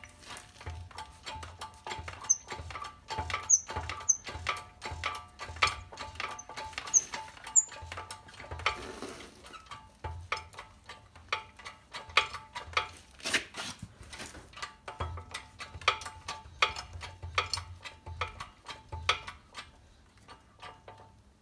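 Hydraulic shop press being hand-pumped, pressing a wheel hub flange into a new wheel bearing in a steering knuckle. Irregular clicking of the pump and metal parts under load, with low thumps about twice a second.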